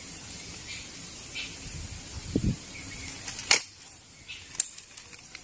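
Precihole NX200 break-barrel air rifle being handled and cocked: a dull knock about two seconds in, then two sharp metallic clicks about a second apart as the barrel is broken and snapped shut for the next shot.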